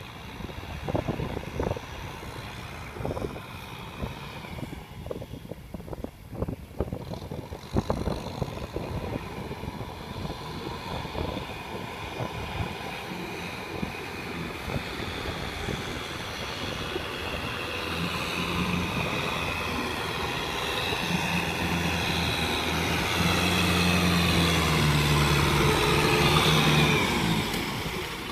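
Kubota M6040SU tractor's diesel engine working a flooded rice paddy. It grows steadily louder as the tractor approaches, with irregular knocks in the first several seconds, and its engine note is strongest in the last few seconds before dropping off at the very end.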